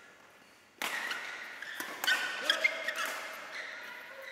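Badminton rally: sharp racket hits on the shuttlecock and short squeaks of shoes on the court floor, starting suddenly about a second in, with the loudest hits a little past two seconds.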